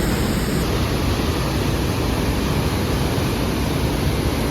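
Loud, steady rushing of water from a torrent or waterfall in a gorge.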